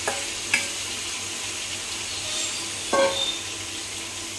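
Pineapple sizzling in hot garlic oil in a pot, a steady hiss. A utensil clinks against the pot three times, loudest and ringing about three seconds in.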